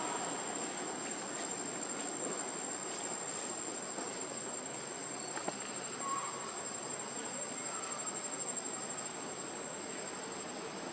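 Insects droning steadily in the forest, a thin unbroken high buzz, over a steady low background hiss with a few faint ticks.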